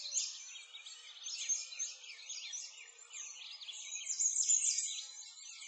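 Chorus of songbirds: many quick high chirps and short trills overlapping without a break, an ambient birdsong track laid over a computer-rendered scene.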